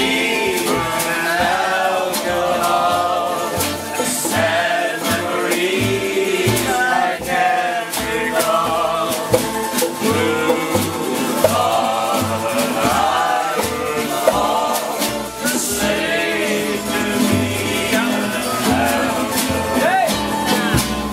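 Jug band playing an old-time song on acoustic guitars, a snare drum and a washtub bass, with singing over a steady beat.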